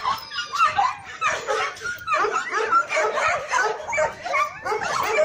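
Several dogs barking and yipping in quick, overlapping calls, with some whining mixed in.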